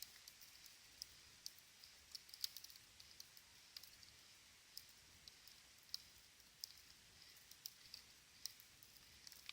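Small campfire crackling faintly: irregular sharp pops and snaps, a few a second, over a soft hiss.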